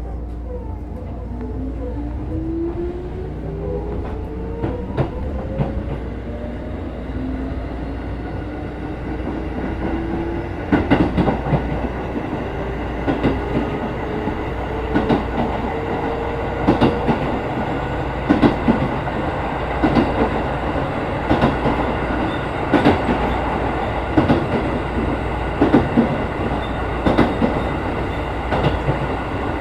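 Keikyu 1500 series field-chopper electric train running, heard from the motor car: the traction motor whine rises steadily in pitch as the train accelerates away from a station. From about ten seconds in, the wheels click over rail joints roughly once a second.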